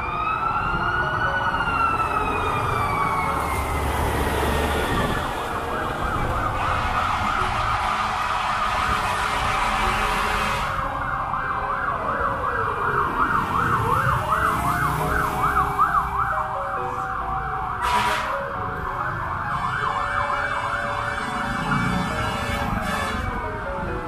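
Fire truck sirens in street traffic: a slow rising-and-falling wail at first, then a fast yelp, with a second siren's slower wails overlapping it in the second half. Traffic rumble runs underneath, and there is one sharp click partway through.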